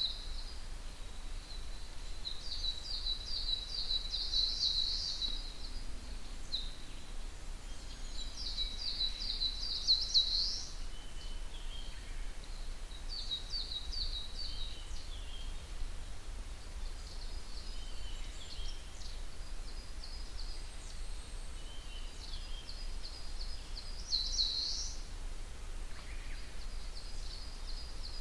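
Wild songbirds singing in a forest at dawn: one bird repeats a phrase of rapid high notes lasting two or three seconds, again every few seconds, with fainter calls from other birds in between. A low, steady rumble of background noise lies underneath.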